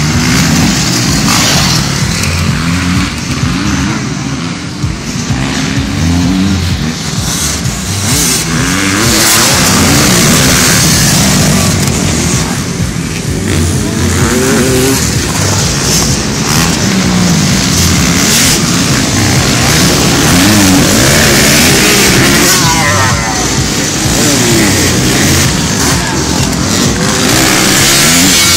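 Several motocross bikes racing, their engines revving up and dropping back again and again as riders accelerate, shift and brake around the dirt track.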